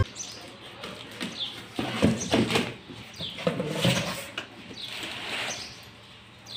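A plastic-wrapped cardboard carton being cut and torn open by hand: plastic and cardboard rustle and scrape in uneven bursts, loudest a couple of seconds in. A few short bird chirps sound behind it.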